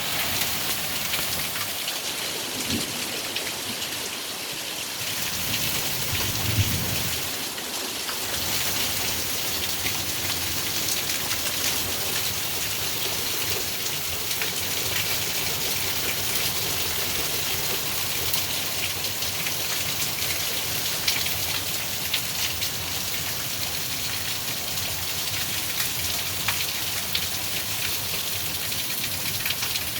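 Steady rainfall with scattered sharp ticks of drops hitting a surface, and a brief low rumble about six seconds in.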